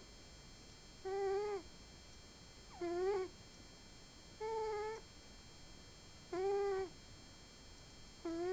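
Sleeping cat snoring with a squeaky, steady-pitched tone on each breath, five short even calls about every one and a half to two seconds.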